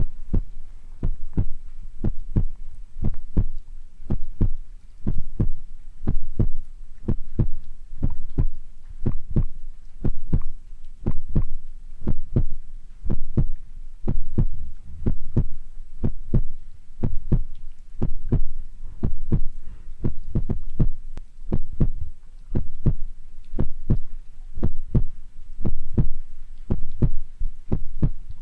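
Soft thumps close on an ASMR microphone, a slow steady rhythm of about two a second with a low, muffled weight.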